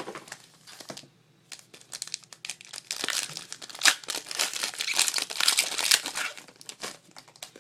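Trading card pack wrapper crinkling and tearing as it is ripped open by hand, a dense run of crackles that is busiest in the middle.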